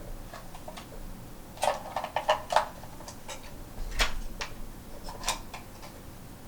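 Small plastic parts being handled: a quick cluster of sharp clicks and taps, then a few single clicks spaced out.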